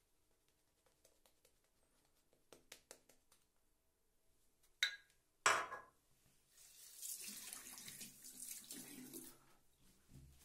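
A few light clicks, then two sharp knocks, followed by water from a bathroom tap running into a sink for about three seconds before it stops.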